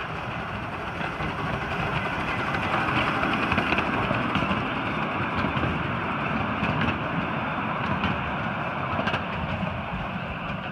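A 7.25 in gauge Tinkerbell class live steam locomotive and its ride-on passenger cars running along the miniature railway track: a steady rumble of wheels on rails with a few light clicks.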